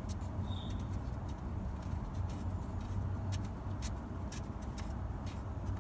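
Scattered light clicks and taps of a 19 mm socket wrench working the oil drain bolt loose, over a steady low hum, with one short high chirp about half a second in.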